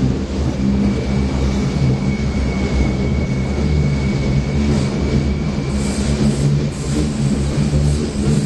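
Open-topped U-Bahn train running through a subway tunnel, heard from the open car: a steady, loud rumble of wheels on rails. A thin high squeal is held for a few seconds in the middle.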